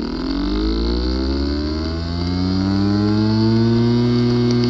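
Hard disk drive with a physically damaged disk assembly spinning up: a whine of several tones that rises in pitch over the first three seconds or so, then holds steady.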